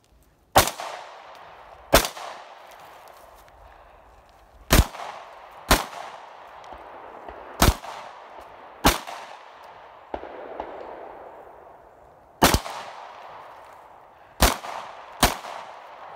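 Heckler & Koch P30SK 9mm pistol fired about nine times in slow, irregular succession, each sharp shot followed by a trailing echo.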